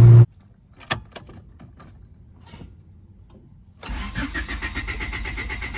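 Key clicks in the ignition, then the 1995 Honda Civic's starter cranks the engine in a quick rhythmic churn that does not catch: it spins but won't start.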